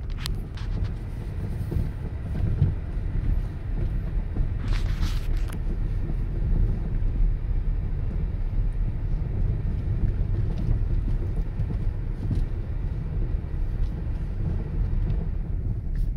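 Car driving on snowy winter roads, heard from inside the cabin: a steady low rumble of engine and tyre noise, with a brief hiss about five seconds in.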